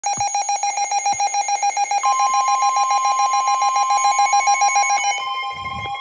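Several Midland NOAA weather radios sounding their warning alarms at once: a rapid beeping tone, joined about two seconds in by a steady alert tone, and near the end a slowly rising siren tone from the ER310.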